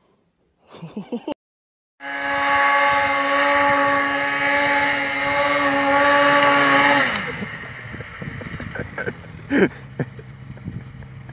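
Snowmobile engine running at high, steady revs for about five seconds after a sudden start, then the revs fall away as the throttle is let off. A quieter stretch follows with one short, sharp event near the end.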